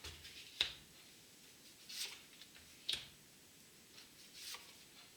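Tarot cards being drawn from the deck and laid down on the table: two sharp card snaps and a couple of softer slides of the cards.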